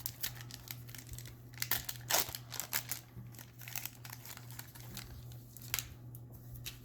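Crinkling and rustling as trading-card packaging and cards are handled: a run of quick irregular crackles, loudest about two seconds in.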